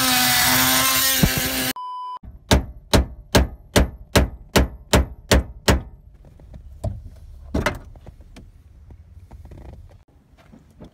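A cordless drill runs with a steady whine for under two seconds, then a hammer strikes the truck's steering column about nine times in quick, even succession, a little over two blows a second. Lighter knocks and clicks follow.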